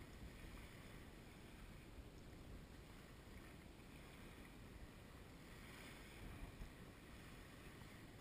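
Near silence: a faint, steady low rumble of light wind on the microphone, with nothing else standing out.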